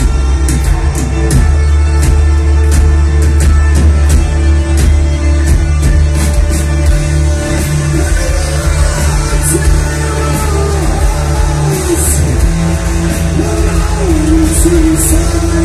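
Heavy metal band playing live: distorted guitars, bass and pounding drums. A sung vocal line comes in about halfway through.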